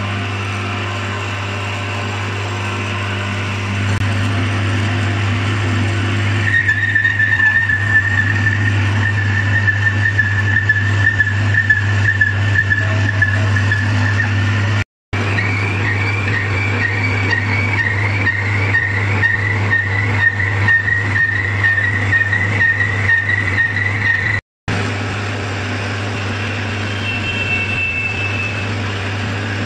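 Metal lathe turning the broken end of a Massey Ferguson 240 rear axle: the machine runs with a steady hum, and from about six seconds in the cutting tool whines at a steady high pitch as it takes metal off. Near the end a centre drill in the tailstock chuck bores a centre hole in the spinning axle end.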